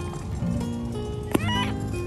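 Background music with steady held notes. About 1.3 s in comes one sharp click, then a short, high, rising call.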